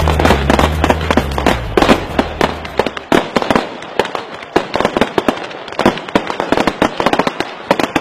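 Fireworks or firecrackers going off in rapid, irregular bangs and cracks. Background music plays under them for the first three seconds or so.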